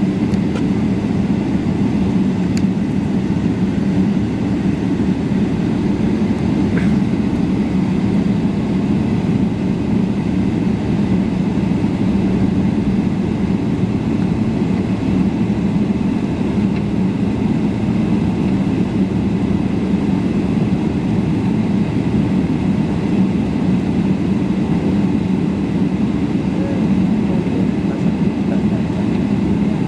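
Steady low drone of a Boeing 777-300ER taxiing, heard inside the cabin: its GE90 jet engines at taxi power, with a rolling rumble.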